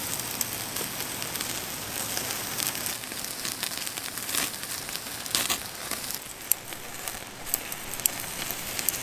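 Well-marbled beef sizzling on a grill: a steady sizzle with scattered sharp pops as the fat crackles.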